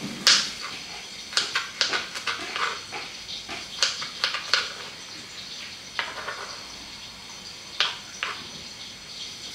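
Dishes and kitchen utensils clinking and clattering in a series of sharp knocks, busiest in the first half, with a few more near the end.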